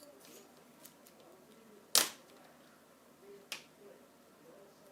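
Snap-on plastic screen bezel of an Acer Aspire V5-552 laptop being pried off by hand, its clips releasing with sharp plastic snaps: one loud snap about two seconds in and a smaller one about a second and a half later.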